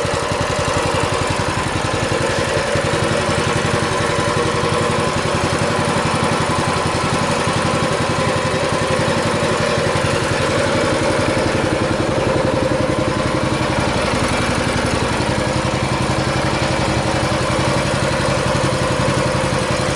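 Massimo MB200 mini bike's 196cc single-cylinder four-stroke engine idling steadily with the choke off, warming up after a cold start.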